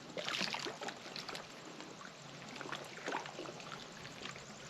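Faint, irregular small splashes and trickling of water close by, a little louder in the first second.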